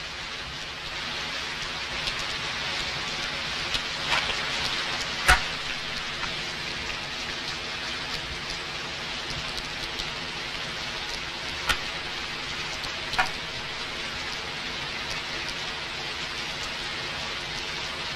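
Steady hiss of rain, with a few sharp clicks scattered through it, the loudest about five seconds in.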